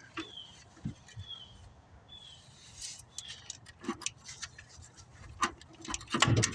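Scattered metal clinks and knocks of hand tools on the truck's brake booster and its brackets, the loudest cluster near the end. A bird repeats a short falling chirp about once a second.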